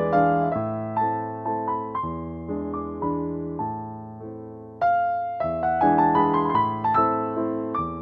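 Background music: a gentle piano melody of single notes and chords, with a short lull near the middle before the next phrase comes in.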